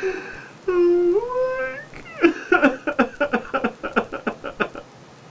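A man crying in grief: a falling cry, then a long wailing cry that rises at its end, then a rapid run of short sobs that stops shortly before the end.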